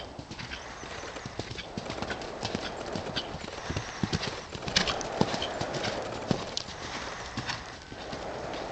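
Horse's hoofbeats on a sand arena surface: an uneven run of dull thuds, with a few sharper, louder strikes around the middle.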